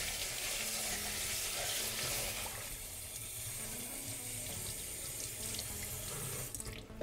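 Water from a kitchen tap running and splashing into a stainless steel sink as a clear plastic pitcher reservoir is rinsed under the stream by hand. The flow stops shortly before the end.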